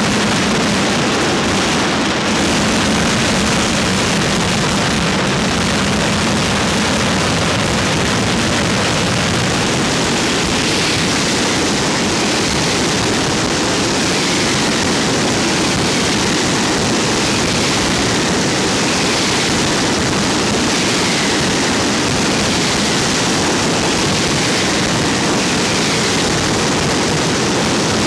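Mascletà firecrackers (masclets and trons) going off in one unbroken, very loud barrage that blends into a continuous roar of detonations. In the second half, falling whistling tones repeat about every second and a half over the blasts.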